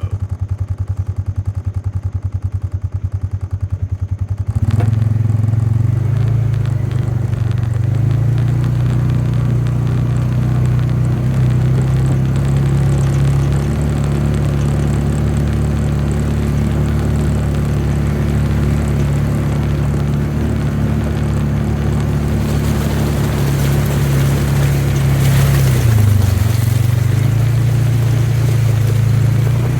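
A motor vehicle's engine idles with a rapid, even putter, then speeds up about four and a half seconds in and runs steadily and louder. Its pitch dips briefly near the end, then comes back up.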